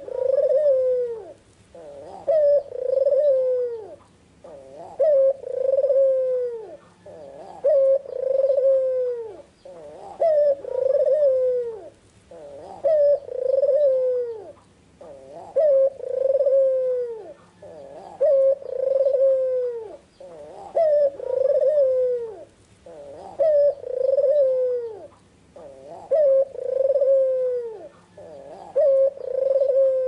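White red-eyed ringneck dove (puter putih) cooing over and over, about one call every two and a half seconds. Each call is a short note followed by a longer one that falls away at the end.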